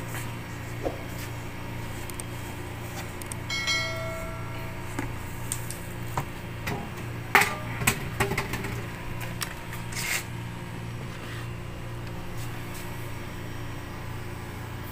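Cardboard box of an oxy-acetylene cutting torch kit being opened and handled: a brief squeak about four seconds in, then a few sharp knocks and clicks, the loudest about seven and a half seconds in. A steady low hum runs underneath.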